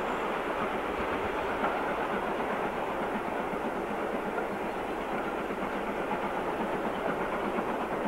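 Steam-hauled passenger train running along the track, its coaches' wheels on the rails giving a steady, even running noise.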